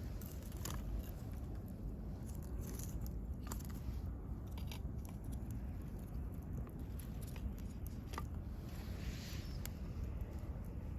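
Wood bonfire burning: scattered crackles and pops over a low steady rumble, with a short hiss near the end.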